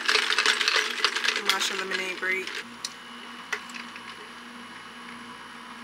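Ice cubes clinking and rattling against each other and a clear plastic cup of iced matcha as it is shaken. The rapid clicking lasts about two and a half seconds, then gives way to a few faint isolated clicks.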